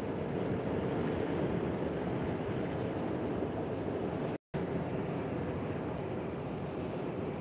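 Steady drone of a lorry cab at motorway speed: engine and tyre noise heard from inside the cab. The sound cuts out completely for a split second about four and a half seconds in.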